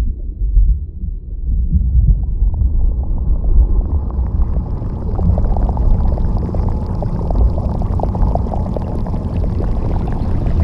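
Designed deep-underwater ambience: a heavy low rumble of moving water that gradually brightens over the first few seconds, settling into a steady swirling current with faint crackles.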